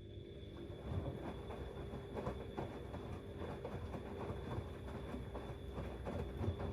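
Siemens Extraklasse XLS 140 A washing machine's drum motor starting up and turning the drum with a steady whine, while the wet load of cleaning rags tumbles with irregular soft knocks, during a 90 °C boil-wash programme.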